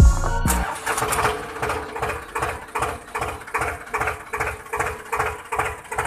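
Small motor of a mini tractor running with a steady whine and an even ticking at about three a second. Background music cuts off just under a second in.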